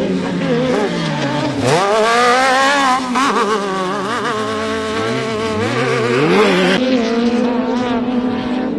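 Off-road race buggy engines revving hard: the pitch climbs sharply about two seconds in as a buggy accelerates out of a corner, drops, then climbs again near the end, over a steady engine hum underneath.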